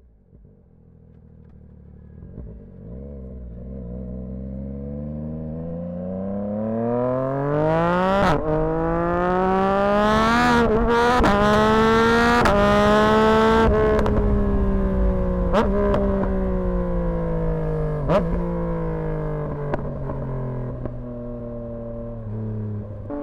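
Yamaha MT-09's three-cylinder engine through a Dominator exhaust under wide-open throttle, growing louder over about ten seconds as its note climbs, with brief breaks in the note around the upshifts. It then backs off and the note falls slowly, with several sharp exhaust pops and crackles on the overrun.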